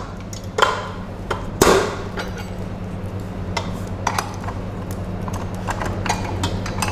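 Clanks and clinks of a KitchenAid stand mixer's stainless-steel bowl and flat beater being handled and fitted onto the mixer: a dozen or so sharp metal knocks at uneven intervals, the loudest about a second and a half in. A steady low hum runs underneath.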